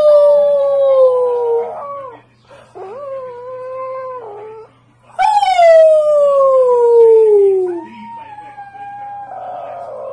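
Wolf pup howling: four long howls with short breaks between them, most starting high and sliding down in pitch, the last held steadier and rougher.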